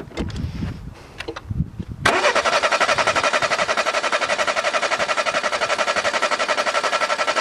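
Starter motor cranking a Citroën engine with its spark plugs out for a compression test, so the engine turns over without firing; the cranking starts suddenly about two seconds in as a steady whirr with a rapid even pulse from the cylinders' compression strokes. A few light knocks and handling sounds come before it.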